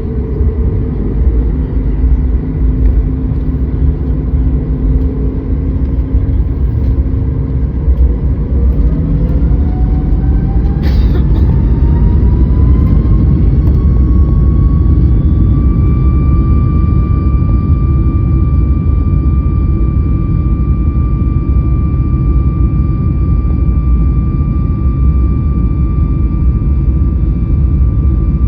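CFM LEAP-1B turbofan engines of a Boeing 737 MAX, a loud rumble with a whine that rises in pitch from about eight seconds in and then holds steady: the engines spooling up to higher thrust.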